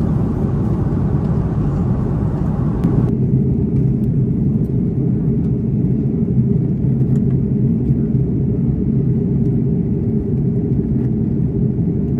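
Airbus A330-200 cabin noise in flight: a loud, steady low rumble with a few faint clicks. About three seconds in, the higher hiss above it drops away abruptly.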